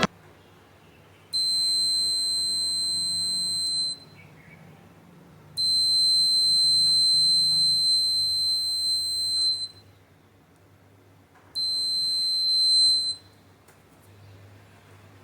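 Buzzer of a homemade heat/fire alarm circuit sounding a steady high-pitched tone three times: a few seconds on, a pause, a longer burst of about four seconds, a pause, then a short final burst.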